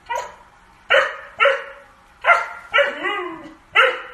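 Husky barking repeatedly, six loud barks about half a second to a second apart; one about three seconds in is drawn out with a wavering pitch.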